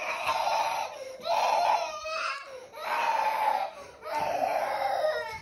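Young girl crying in a tantrum: four long wails of about a second each, with short breaks for breath between them.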